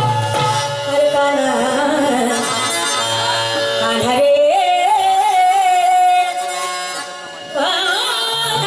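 Marathi Tamasha gavlan song: a singer's voice over instrumental accompaniment, with one long held note in the middle. The music dips briefly about seven seconds in, then comes back in full.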